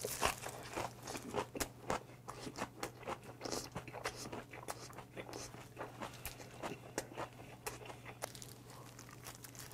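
Close-miked chewing of a big mouthful of oyster bossam (raw oysters and boiled pork wrapped in salted napa cabbage): wet mouth clicks and smacks, frequent at first and thinning out toward the end.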